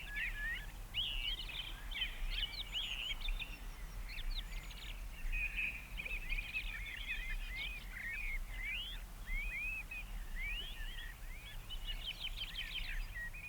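Small birds chirping and twittering without a break: many short, quick rising and falling calls overlapping, thickest near the end.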